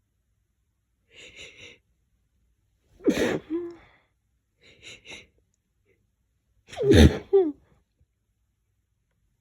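Two sneezes about four seconds apart, set off by breathing in a lavender-scented pillow. Each is preceded by a few quick, quieter breaths and ends in a short voiced cry, and the second sneeze is the louder.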